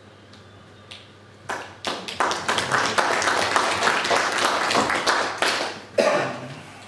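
A small audience clapping. The applause starts about a second and a half in and dies away just before the end.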